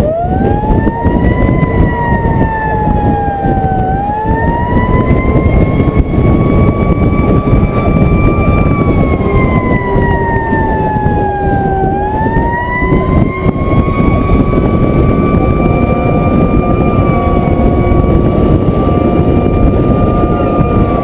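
Fire truck siren starting up, rising and falling in slow, uneven sweeps and then holding a steady high pitch for the last several seconds. Underneath it runs the truck's engine with road and wind noise.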